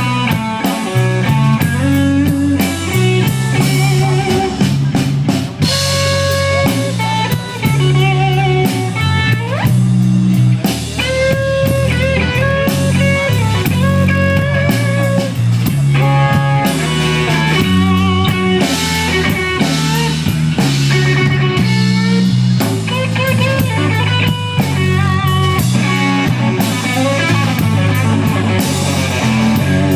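Live blues trio playing a slow blues: an electric guitar solos with bent notes and vibrato over electric bass and a drum kit, without vocals.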